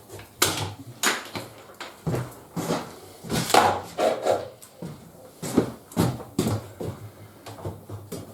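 Irregular knocks, clicks and clatter of tools and plumbing parts being handled, about a dozen sharp taps with short scrapes between them.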